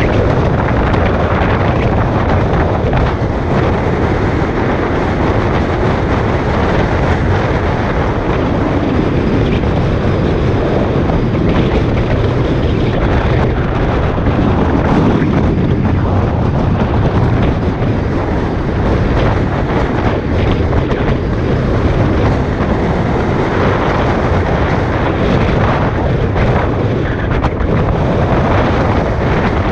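Steady rush of wind buffeting the microphone of a camera at the window of a moving car, over the car's running noise.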